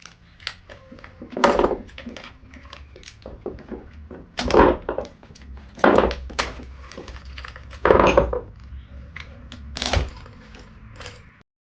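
Tools and wheel parts being handled during a mower front-wheel change: light clicks and clatter, with about five louder thunks roughly two seconds apart. The sound cuts off abruptly near the end.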